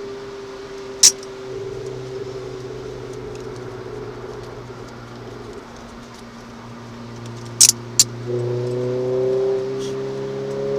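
Renault Clio RS 200 engine heard from inside the car, its note easing slowly down and then climbing again from about eight seconds in, under a steady hiss. A few sharp clicks cut through it, one about a second in and two close together near the eight-second mark.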